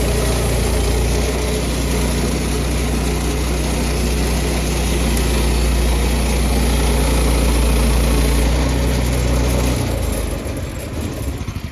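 Sawmill engine running steadily while milling a redwood slab, then shutting off about ten seconds in and winding down.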